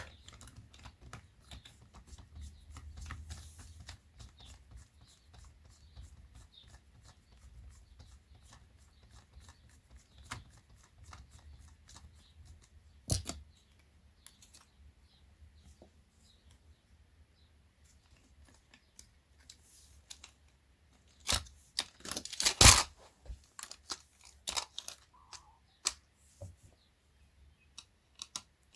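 Small clicks, taps and knocks of plastic and metal parts being handled while a Panasonic SA-AK90 stereo unit is taken apart. One sharper knock comes about halfway through, and a quick run of louder knocks follows about three quarters of the way in.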